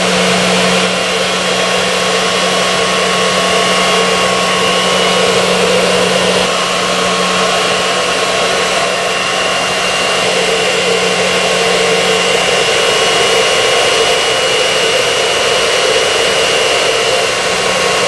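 Minuteman explosion-proof industrial vacuum with a sealed, non-sparking motor running steadily at full suction while picking up flour. It has a constant hum with a thin high whine over a dense rush of air.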